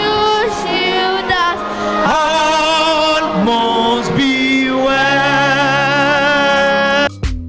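A group of children singing a song together from their song sheets. About seven seconds in it cuts off abruptly to a different music track with sharp drum beats.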